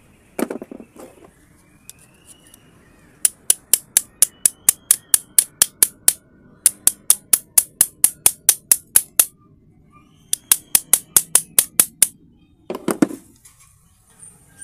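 A hand tool scraping rust off the metal bracket of a blender's slide switch, in three runs of quick, sharp strokes at about six a second. There is a short knock just after the start and another near the end.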